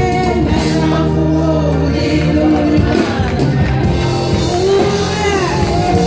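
Gospel choir singing live with a woman leading at the microphone, backed by a band with a steady bass line and drums.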